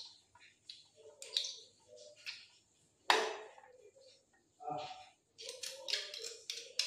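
Clam shells clicking and knocking against one another and a vessel as the clams are handled and cleaned: scattered short knocks, the sharpest about three seconds in, and a quick run of clicks near the end.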